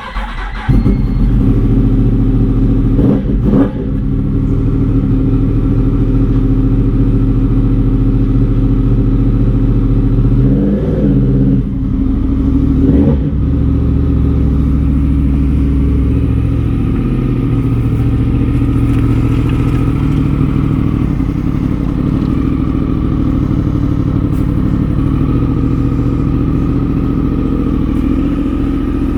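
Yamaha R1's crossplane inline-four engine fires up about a second in. It then runs steadily, with a few brief revs.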